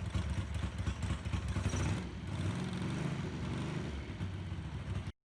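Ducati bevel-drive V-twin engine running, its low exhaust pulses shifting in pitch about two seconds in, then cutting off suddenly.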